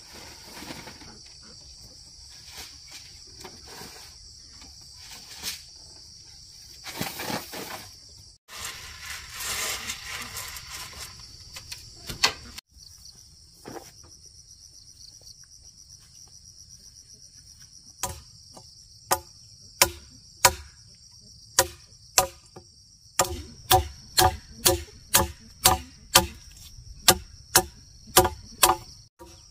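A steady high-pitched insect drone of cicadas or crickets runs throughout. From a little past halfway, a blade chops repeatedly into wood or bamboo: sharp, hollow-ringing strikes that speed up to about two a second and are the loudest sounds here.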